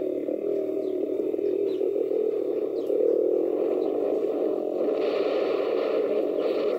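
80cc dirt bike engine running under way, heard through wind buffeting and distortion on a helmet-mounted camera's microphone. About five seconds in, the sound turns brighter and harsher.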